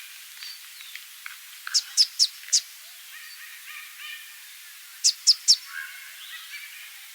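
Southern double-collared sunbird (immature male) calling: a quick run of four sharp, high, falling notes about two seconds in and three more about five seconds in, over fainter twittering of other birds.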